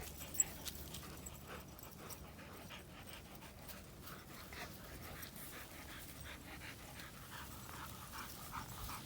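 A dog panting, faint, with one sharp click about half a second in.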